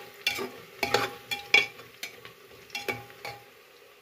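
A metal spoon stirring frying onions in an aluminium pressure cooker: irregular scrapes and clinks against the pot, some ringing briefly, with the onions sizzling in the oil. The stirring stops about three and a half seconds in.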